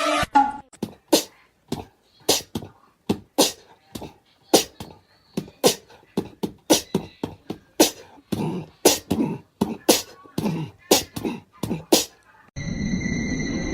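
A long string of short, sharp percussive clicks and knocks in an uneven rhythm, about one or two a second, coming faster from about eight seconds in. About a second before the end they stop and a steady hum with a high whine takes over.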